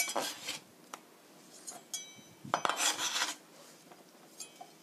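Kitchen knife scraping chopped tomato across a plastic cutting board into a bowl. There are two scrapes, a short one at the start and a longer, louder one about two and a half seconds in, with a faint clink of the blade on the bowl.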